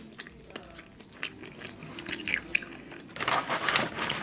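Eating sounds close to the microphone: chewing with small crunches and moist clicks, growing into a louder, denser rustling noise near the end.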